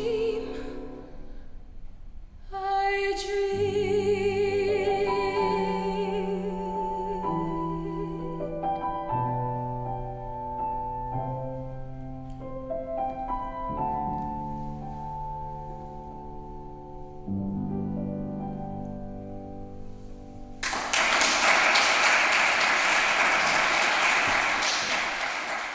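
A woman's voice holds the long final note of a song with vibrato over grand piano. The piano then plays slow closing chords alone, and an audience starts applauding near the end.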